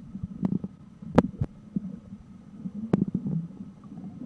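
Underwater sound heard through a submerged camera: a low, muffled rumble with several sharp clicks, the loudest a little over a second in and again near three seconds.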